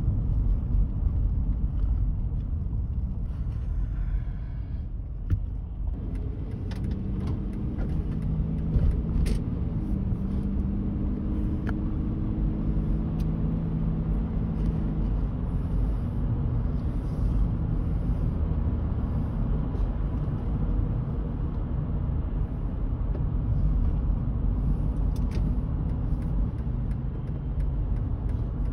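Car driving, heard from inside the cabin: a steady low rumble of road and engine noise, with a steadier engine hum coming up about six seconds in and fading out about halfway through.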